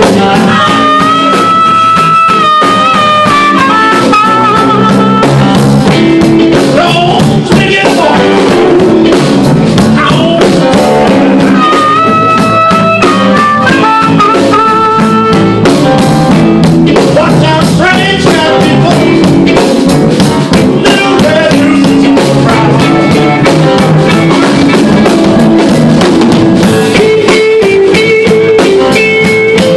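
Live blues band playing a slow blues: a harmonica plays long held, bending notes in phrases over electric guitar, piano and drums.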